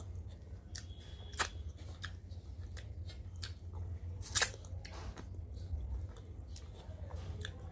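Close-up eating sounds of rice and dal eaten by hand: fingers squishing and scraping food on a metal plate, and wet clicks from the mouth while chewing. There is a sharp, loud click about four and a half seconds in, all over a steady low hum.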